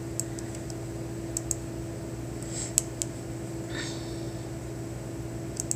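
Quiet room with a steady low hum, two soft sniffs or breaths near the middle, and a few faint sharp clicks as the page is scrolled.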